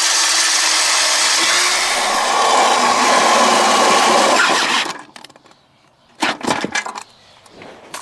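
Mastercraft cordless drill running under load against a trailer's steel I-beam, boring pilot holes and driving self-tapping screws for a bracket. It runs steadily for about five seconds and then stops, followed by a few short knocks.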